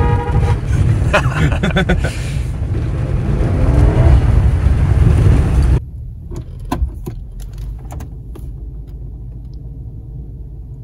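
The 2005 Toyota Tundra's horn sounds briefly at the start, over the loud, steady rumble of the truck driving, heard from inside the cab. About six seconds in, the sound cuts abruptly to a much quieter cabin with a faint steady hum and a few light clicks.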